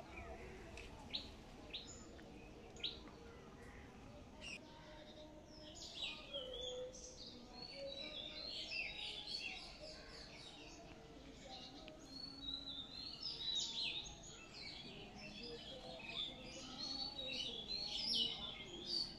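Small birds chirping and calling: many short, high, overlapping chirps, sparse at first and growing into a busy chorus about a third of the way in. A few sharp clicks sound in the first few seconds.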